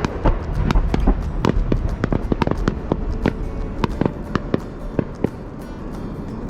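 Fireworks bursting: a rapid, irregular run of sharp bangs and crackles, several a second, over a steady low rumble.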